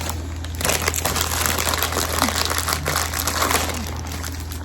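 Plastic snack wrapper crinkling and rustling as it is handled and opened, a dense run of crackles throughout.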